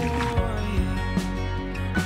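Background music: sustained low notes that change pitch, with a light, regular beat.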